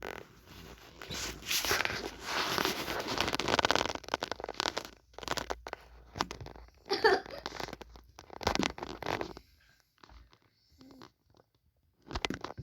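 Irregular rustling, crinkling and scraping noises in bursts, with short quiet gaps between them.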